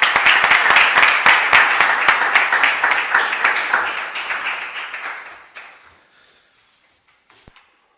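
Applause from a small group of people clapping, fading away about five to six seconds in; a single light knock near the end.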